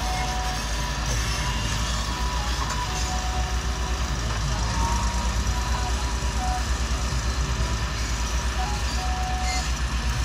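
Diesel engine of a Volvo EW145B wheeled excavator running steadily with a low, even pulsing as it digs and loads rock, with short high tones coming and going.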